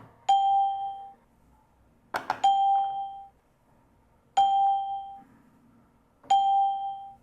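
A click followed by a bell-like ding, repeated four times about two seconds apart, each ding ringing out for under a second.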